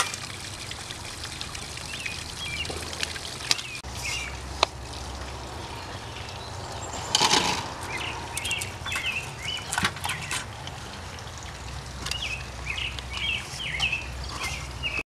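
Outdoor ambience of small birds chirping repeatedly, with a few sharp clicks and a brief rustle about seven seconds in, over a steady low rumble.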